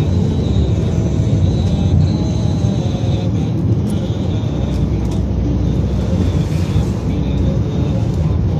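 Steady rumble of a moving road vehicle heard from on board: engine and tyre noise with wind on the microphone, even throughout.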